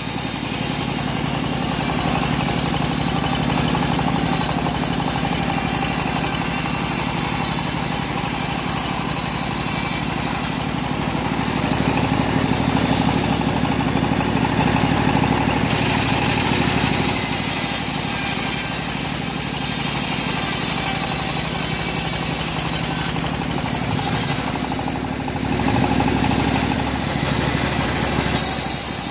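Home-built engine-driven bandsaw mill running steadily, its blade sawing through a teak log for much of the time.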